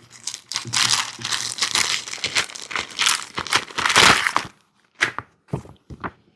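Crinkling and rustling as the instruction manual is picked up and its wrapping handled, dense for about four seconds, then a few short rustles.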